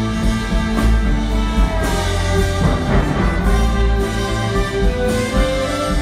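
Symphony orchestra playing an instrumental passage of a pop-song arrangement, with long held notes over a strong bass and no singing.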